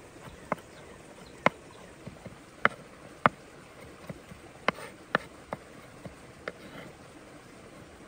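About ten sharp knocks and clicks at irregular spacing, over a faint steady hiss.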